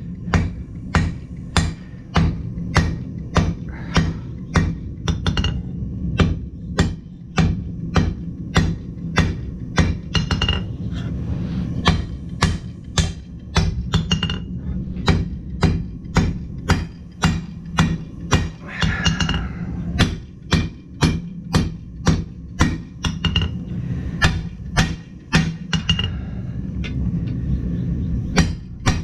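Blacksmith's hammer striking hot steel on an anvil in steady runs of about two to three blows a second, with short pauses between runs, over a steady low hum.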